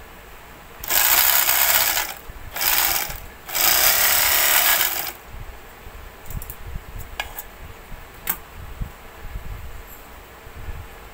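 Portable overlock edging machine running in three short bursts, about a second in, again just after, and a longer run of about a second and a half, as it stitches a scrap of fabric: a test run of the newly fitted needle. A few light clicks follow.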